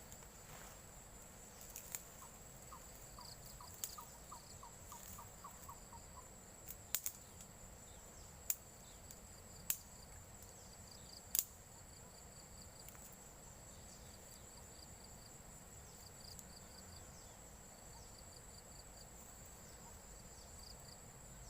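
Crickets and other insects calling steadily with a high, even trill, faint overall. Several sharp clicks stand out above them, the loudest events, scattered through the first half. A brief run of quick ticks comes about three seconds in.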